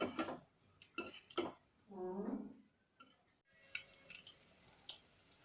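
A metal spoon knocks and scrapes against a pot a few times while spices are stirred in hot oil. A short pitched sound follows about two seconds in. From about three and a half seconds the oil sizzles steadily, with small pops and crackles as mustard seeds, cumin, dried chillies and garlic fry in the tempering.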